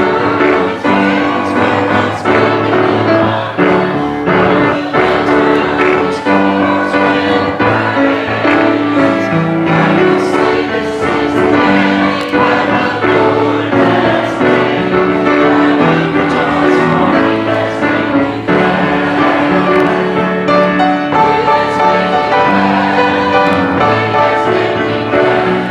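A group singing a gospel worship song together over piano or keyboard accompaniment.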